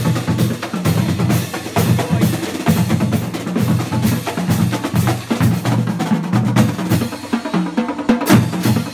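Marching drumline playing a fast, continuous rhythm: snare drums and multi-tenor drums over booming bass drums, with hand cymbals. A louder crash about eight seconds in.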